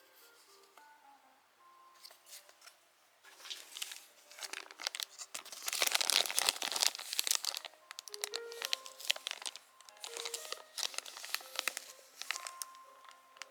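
Packaging crinkling and being torn open, a dense crackle that starts a few seconds in and is heaviest around the middle, over soft background music.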